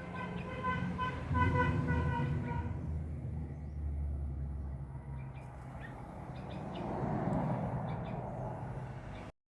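A vehicle horn tooting in short repeated blasts for about three seconds, over the low rumble of a passing vehicle; another vehicle goes by near the end.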